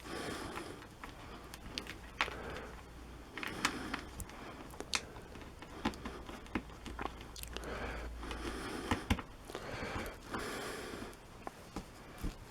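A zipper being worked by hand: short, soft rasping runs of the slider along the teeth, with scattered sharp clicks from handling. A worn slider that has been tapped tighter with a hammer is being tried out.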